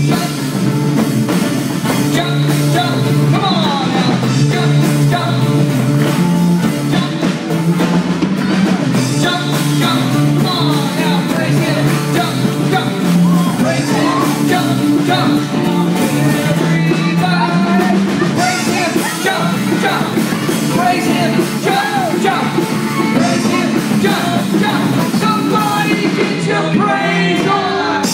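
Worship band playing live: voices singing over a drum kit and the rest of the band.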